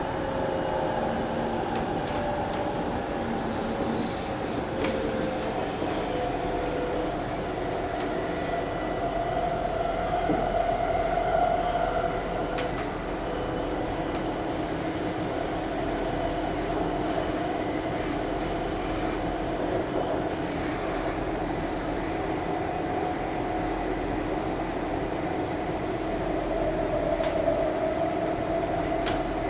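Kaohsiung MRT Red Line metro train running between stations, heard from inside the passenger car: a steady rumbling ride noise with a few humming tones that drift slightly in pitch, and the odd faint click.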